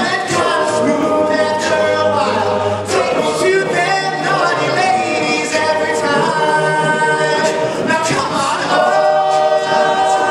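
All-male a cappella group singing in close harmony: several voices hold chords over a low sung bass line.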